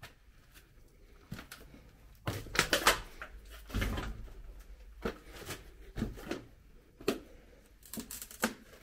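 Footsteps and knocks on a littered floor: an irregular string of clicks and thuds, densest and loudest about two to three seconds in.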